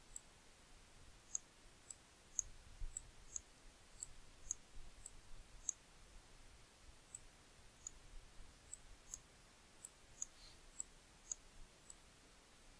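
Faint computer mouse button clicks: about twenty short, sharp ticks at irregular intervals, the button pressed and released for each pen stroke while drawing.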